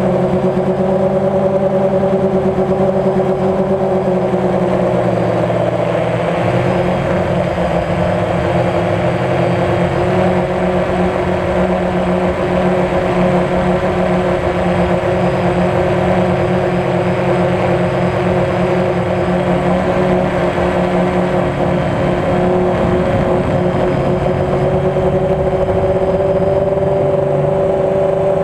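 DJI Phantom quadcopter's electric motors and propellers humming steadily, heard from the camera mounted on the drone, with several close pitches that shift slightly about six seconds in as the motors change speed.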